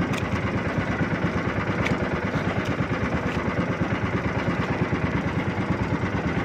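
Outrigger fishing boat's engine running steadily under way, with a fast, even throb.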